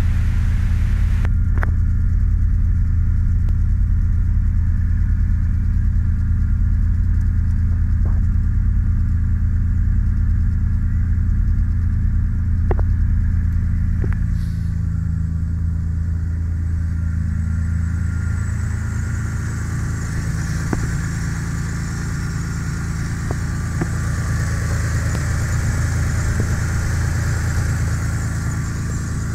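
Carburetted Nissan VG30 3.0-litre V6, fitted with rebuilt VG30E heads and new head gaskets, idling steadily and smoothly. It is heard from inside the cabin at first, then up close at the engine bay from about two-thirds of the way through.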